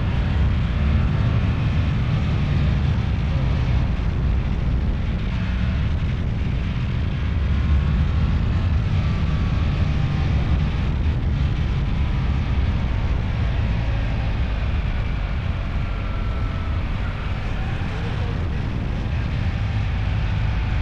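Steady, loud rumble of a moving vehicle, with heavy low noise like wind on the microphone.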